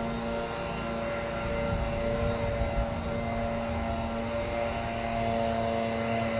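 Class 66 diesel freight locomotive's two-stroke V12 engine running as it hauls a train of tank wagons: a steady drone with a low rumble underneath.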